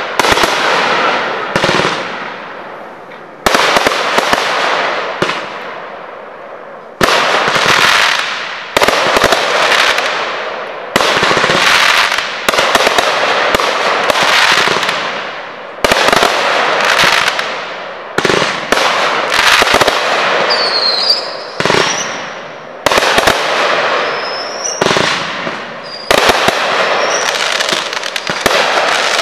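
Aerial fireworks bursting in a steady string of loud, sharp reports, one every second or two, each fading away before the next, with a longer gap early on. A few short whistling streaks come through in the middle of the string.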